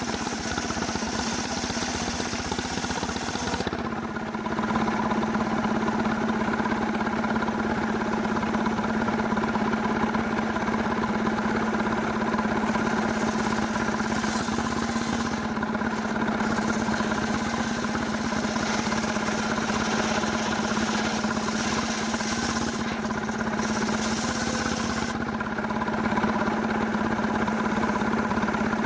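Stihl chainsaw engine running steadily at high revs while sawing a cemara log, with a step up in loudness about four seconds in.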